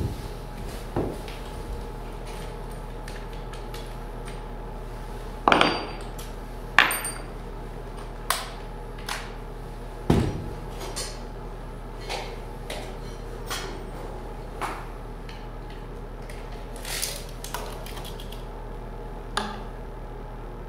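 Scattered knocks and clicks of hand tools being handled and set against wooden wall studs, a few louder knocks in the first half, over a steady low hum.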